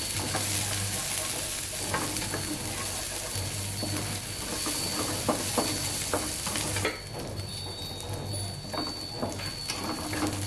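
Shallots, garlic and bird's-eye chillies sizzling in hot oil in a nonstick wok while a wooden spatula stirs them, scraping and tapping the pan, as they start to char and caramelize. The sizzle drops quieter about seven seconds in.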